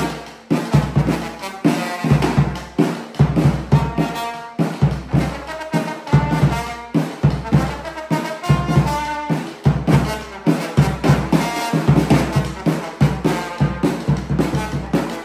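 A trombone playing a melody over a bass drum that keeps a steady beat, in a live band rehearsal.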